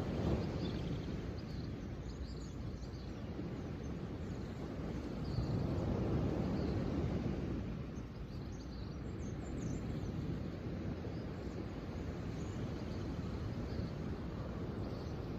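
Outdoor nature ambience: a steady low rushing that swells about five seconds in and eases off around eight seconds, with faint, scattered high bird chirps.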